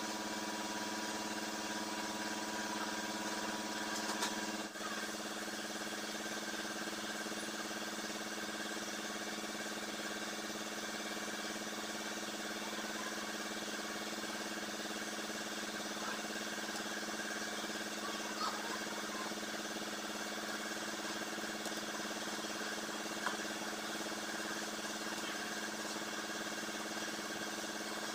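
Steady hiss of a gas brazing torch flame over a constant engine-like hum, with a brief click about five seconds in.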